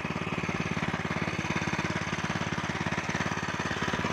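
The 7 hp single-cylinder petrol engine of a VIS back rotary weeder running steadily while its rotary blades and cage wheel till soil, with a rapid, even firing beat.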